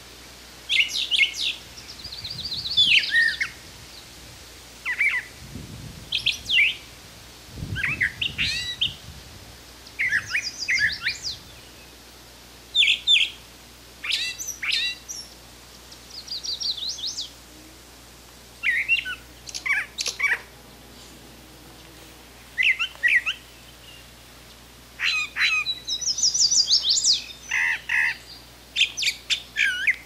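Brown thrasher singing: a long string of short, varied, whistled and chirping phrases, each separated by brief pauses.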